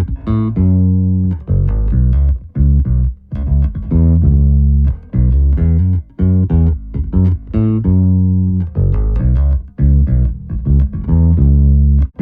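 Electric bass guitar playing a repeating riff of separate plucked notes, recorded through an LA-2A-style opto compressor, the IGS One Levelling Amplifier.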